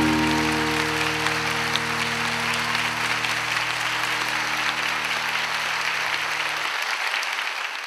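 Audience applause over a held closing chord of the music; the low notes stop about a second before the end and the applause fades out.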